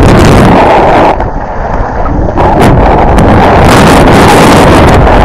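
Wind buffeting the microphone of a skier's action camera during a downhill run, loud and rushing. It eases for a moment about a second in, then picks up again.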